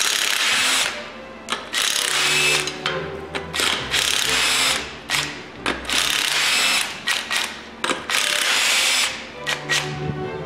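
Cordless impact wrench hammering on a car's wheel lug nuts in about five bursts of roughly a second each, with short blips between them, loosening the nuts to take the wheel off.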